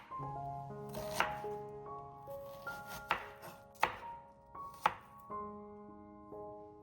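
A knife chopping food on a cutting board: a few separate sharp strikes, over background music of held, piano-like notes.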